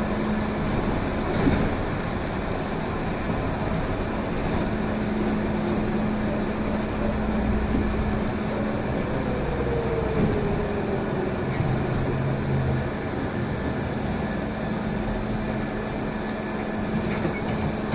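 Trolleybus riding, heard from inside the cabin: steady road and running noise with a constant electric hum, and a whine from the drive that falls in pitch around the middle.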